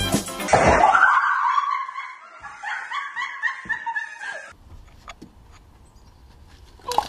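A woman's high-pitched shriek that breaks into choppy laughter, lasting about four seconds. A short sharp knock comes near the end.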